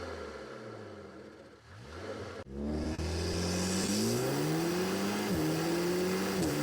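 Turbocharged car engine accelerating hard with an oversized Ramair intake: revs climb in two pulls broken by a brief drop, with turbo whine and intake hiss rising. Near the end the revs fall away as the Turbosmart diverter valve vents.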